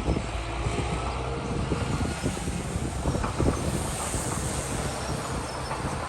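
Heavy diesel earthmoving machinery running steadily, with irregular metallic knocks and clanks throughout.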